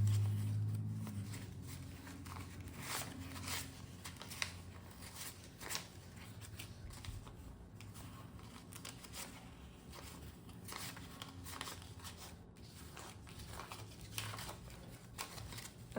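Paper banknotes being handled and shuffled: scattered soft rustles and crinkles of paper, with a faint steady low hum underneath.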